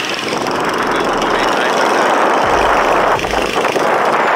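Steady street traffic noise, with a few short low rumbles about halfway through.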